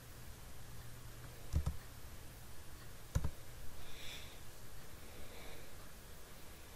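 Two sharp clicks from working a computer's mouse or keyboard, about a second and a half apart, over a faint low hum.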